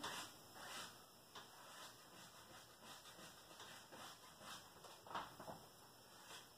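Near silence with a few faint, short scratchy strokes of paint being worked onto a stretched canvas.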